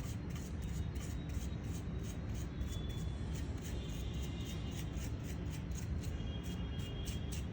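Background music with a steady beat, under the soft scratching of a small brush sweeping dust off a laptop cooling fan.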